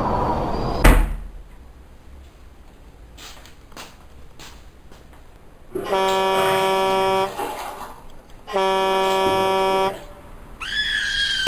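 A sharp bang about a second in, then a car horn sounding two long, steady blasts of about a second and a half each. A short high-pitched cry starts near the end.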